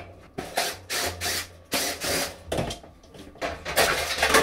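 Sheet-metal range hood panel rattling and scraping as it is pried down and handled, in a string of short, irregular clattering bursts.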